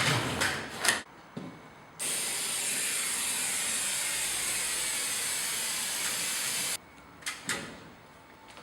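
Aerosol can of Trim-Tex 847 spray adhesive hissing in one steady spray of about five seconds that starts and stops abruptly, with a few clicks and knocks of handling before and after.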